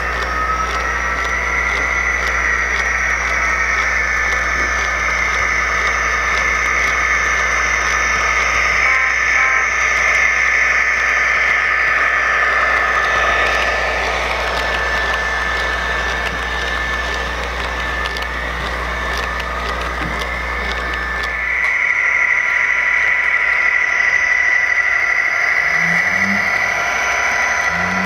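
Model diesel locomotive's sound decoder playing a diesel engine running, with steady high whines on top. About 21 seconds in the low hum drops out and the whine grows stronger.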